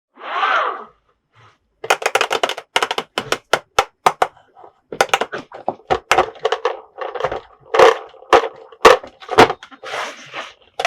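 A short pitched sound at the start, then an irregular run of sharp clicks and knocks, like small hard plastic toy pieces and figures being handled and set down.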